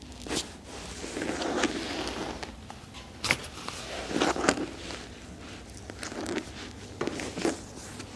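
Rustling of clothing and body movement during chiropractic handling, with a few scattered short sharp clicks.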